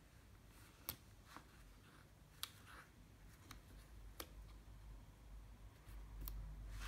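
Near silence broken by about five faint, sharp ticks of a fine-liner pen tip and hand against a paper planner page, the loudest about one and two and a half seconds in.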